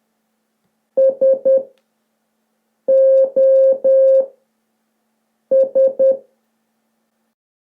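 Morse code SOS played as a steady beeping tone: three short beeps, three long beeps, then three short beeps.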